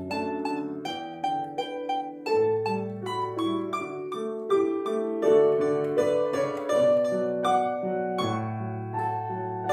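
Domra playing a folk-song melody in quick plucked notes, with grand piano accompaniment underneath.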